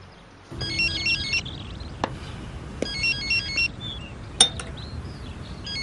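Electronic phone ringtone: a short melody of high, stepped beeps, played twice about two seconds apart, with a third ring starting at the end. A few sharp clicks fall between the rings, the loudest about halfway through.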